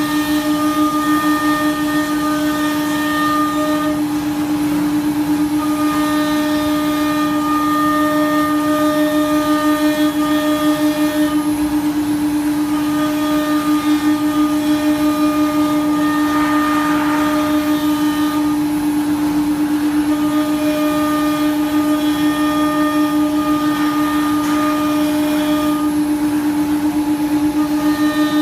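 CNC wood router's spindle running with a steady, unbroken whine as its bit routes grooves into a fibreboard panel. Higher cutting tones drop out and return every few seconds as the bit moves along the cut.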